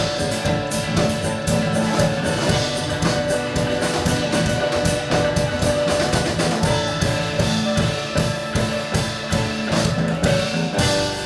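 Live rock band playing an instrumental passage: drum kit keeping a steady beat under sustained electric guitar chords and bass.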